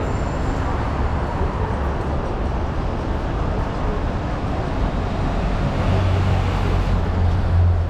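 Road traffic passing on a busy multi-lane street. A truck's engine rumble swells louder as it drives past near the end.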